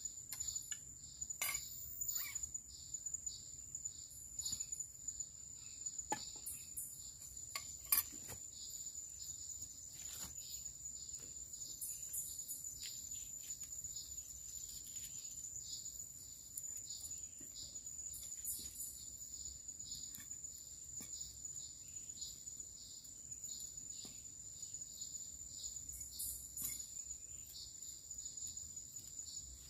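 Steady high-pitched insect chorus of the tropical forest, a continuous shrill tone with a pulsing trill beneath it. A few scattered light clicks and taps, the sharpest about eight seconds in.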